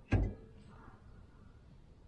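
A single short knock a moment in, from tools or parts being handled during a rear brake pad change, then quiet.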